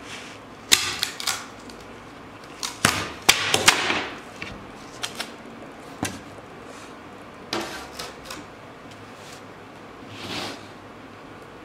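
A round plywood template, taped to a round oak tabletop, being lifted off and handled on a wooden workbench: a run of sharp knocks and taps, loudest in the first four seconds, then scattered ticks and a short rustle about ten seconds in.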